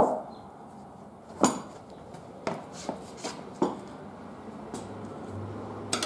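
Steel tire levers clinking and knocking against the cast wheel rim as a rear motorcycle tire is levered off. About seven separate sharp metallic clicks at uneven intervals; the loudest comes about one and a half seconds in.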